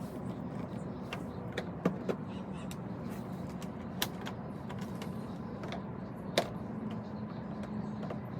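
A handful of sharp, separate clicks and knocks, about five spread irregularly, over a steady low background hum.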